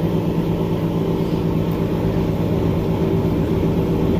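Power sprayer machine running steadily: a continuous mechanical drone with an unchanging low hum.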